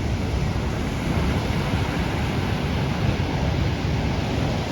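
Wind buffeting the microphone in a steady low rumble, over the even rushing wash of water.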